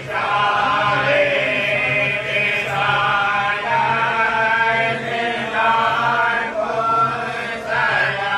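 Men's voices chanting a devotional Urdu salaam, long drawn-out notes that change pitch slowly.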